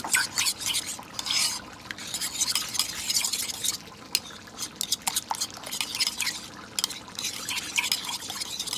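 A spoon stirring yogurt with hot water, with quick, irregular clinks and scrapes against the container, whisking it smooth so no lumps remain.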